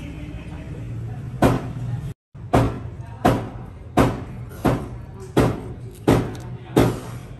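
Background music with a steady beat of sharp drum-like hits, about three every two seconds, over a low sustained tone; the sound cuts out for a moment about two seconds in.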